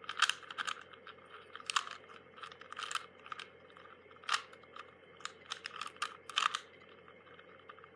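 Rubik's cube being scrambled by hand: irregular plastic clicks and clacks as its layers are twisted, coming in quick clusters with short pauses between.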